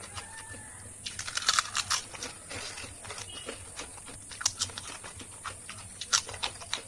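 Potato chips being bitten and chewed fast: irregular crisp crunches, with louder ones about a second and a half in, around two seconds, four and a half seconds and six seconds.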